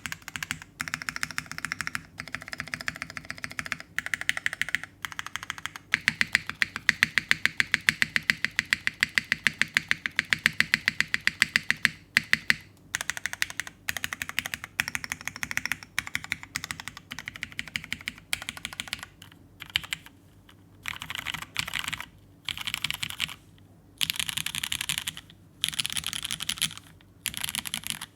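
Fast typing on a top-mount mechanical keyboard with lubed vintage Cherry MX Black linear switches, an aluminum plate, no foam dampening and Cherry-profile keycaps. The keystrokes come in quick runs broken by short pauses.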